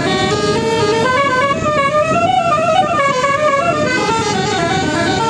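Bus telolet horn playing a melody: several horn tones sounding together, stepping up in pitch to a peak about halfway through and then stepping back down.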